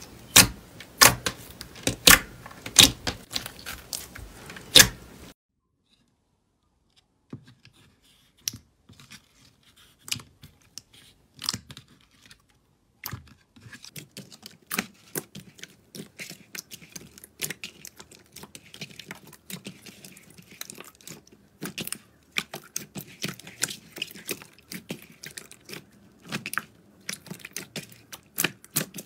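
A hand pressing clear slime flat, giving sharp loud pops of trapped air about twice a second. After a second or two of near silence, hands knead and press a thick slime, giving quieter, denser squelching clicks and crackles.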